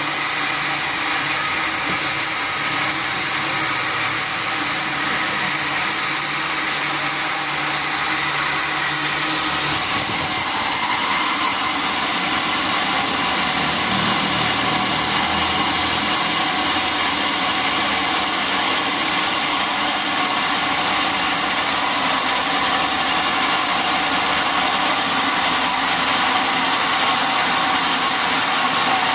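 Sawmill machinery running steadily. About ten seconds in, a high whine drops out and the lower pitches of the machine change, then it runs on steadily.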